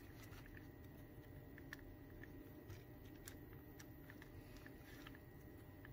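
Faint, scattered small clicks and taps of a plastic headphone earcup being handled and probed with a small plastic prying tool along its seam.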